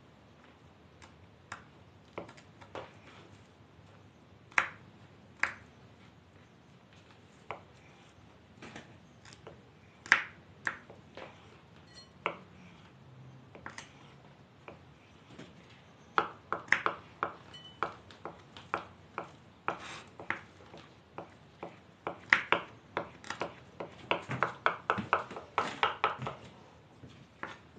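Kitchen knives knocking on wooden cutting boards, chopping boiled eggs and parsley. Scattered single knocks come first, then from about halfway through a quick run of chops at several a second.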